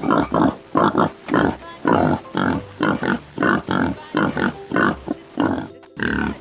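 Pigs grunting, short grunts in quick succession at about three a second, with a brief break near the end.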